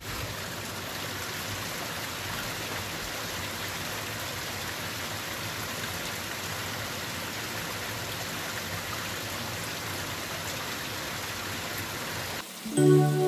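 Small waterfall in a rocky mountain stream, a steady rush of falling and splashing water. Near the end the water sound gives way to music.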